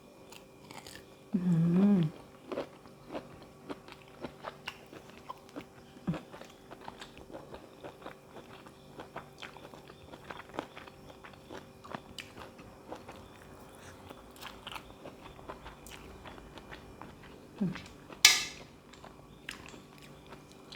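Close-up mouth sounds of a person eating spicy seafood salad with shrimp, squid and fresh vegetables: steady chewing with many small crunches. A short hum about a second in, and one brief louder noisy sound near the end.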